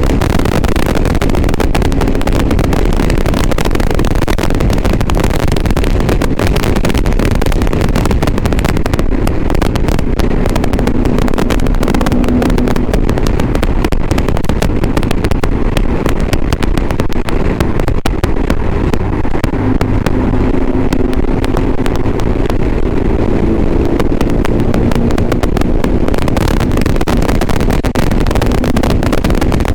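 Motorcycle engine running under way, its tone rising and falling, recorded through a GoPro's external microphone with heavy crackling distortion and wind noise.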